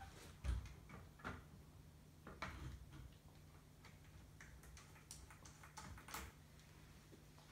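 Faint clicks and taps of small metal hardware being handled and fitted by hand, screws and washers on a 3D printer's Z bed bracket, with a louder knock about half a second in, over a low steady hum.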